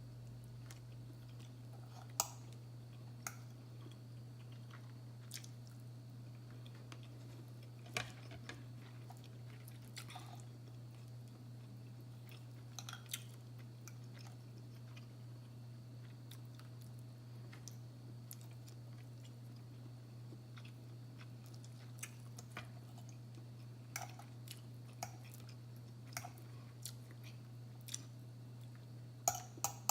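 A person eating: faint chewing with a dozen or so short, sharp clicks scattered through, over a steady low hum.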